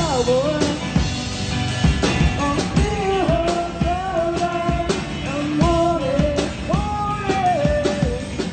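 Live rock band: a singer holding long notes that slide between pitches over electric guitar and a drum kit keeping a steady beat.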